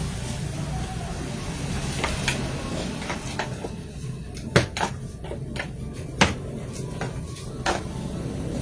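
Scattered sharp clicks and knocks of hand tools and small parts being handled during an appliance repair, with louder knocks about four and a half, six and nearly eight seconds in, over a low steady hum.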